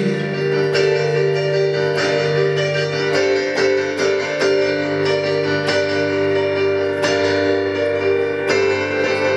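Electronic keyboard played in a piano voice, sustained chords restruck in a steady, even pulse, with no singing over it.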